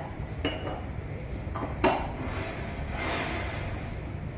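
Metal parts of a cartridge mechanical seal being handled as its fixation ring is fitted: a few light clicks, the sharpest a little under two seconds in, then a soft scraping rustle.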